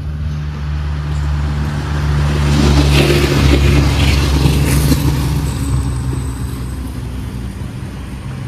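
A motor vehicle engine running steadily with a low hum, growing louder from about two and a half seconds in and easing back after about five seconds.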